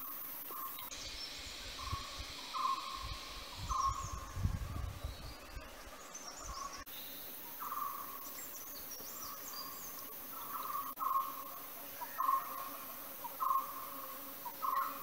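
Tropical rainforest ambience: a steady high insect buzz, with a short call repeated roughly once a second by an unseen animal. A low rumble about three to five seconds in.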